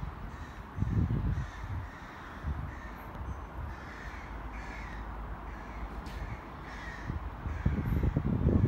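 Gusts of wind rumbling on the microphone at an open station platform, strongest about a second in and again near the end. Between the gusts a bird caws a few times in the background.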